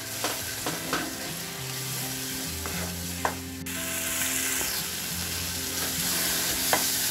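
Tomato-onion masala with spice powders sizzling in butter in a nonstick pan as it is stirred, with a spatula knocking against the pan now and then. Soft background music with held notes plays underneath.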